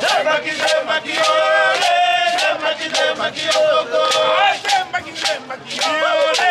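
Men's voices singing a chant together over a steady drumbeat.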